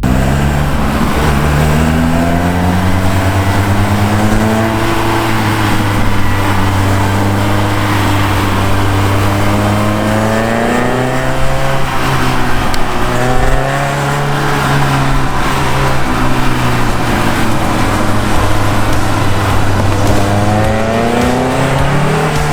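Naturally aspirated Clio Williams 1.8-litre 16-valve four-cylinder engine in a Renault 5 GT Turbo accelerating hard, revs climbing and then dropping at each gear change, several times over.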